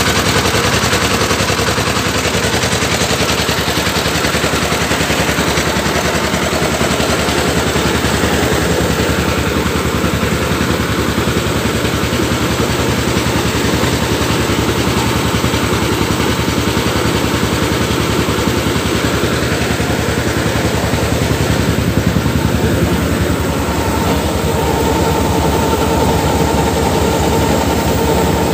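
Diesel engine of a truck-mounted rice mill running steadily, driving the milling machinery, with a fast, even knocking clatter mixed with the mill's rattle.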